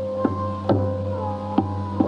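Tabla solo, with a few sparse, separate strokes, about four in two seconds. Under them runs a steady melodic accompaniment with a low drone, some of its notes gliding slightly in pitch.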